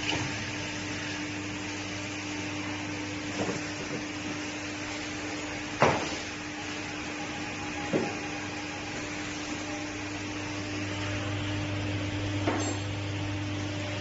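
Hydraulic crimping machine's pump motor humming steadily, with four sharp metal clunks spread through, the hum growing a little louder late on.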